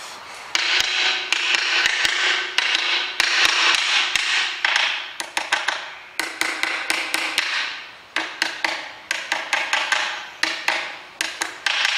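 Hammer tapping a part into place in the open metal gearbox of a Hobart A200 food mixer. The strikes start about half a second in and come a few a second, each leaving a short metallic ring.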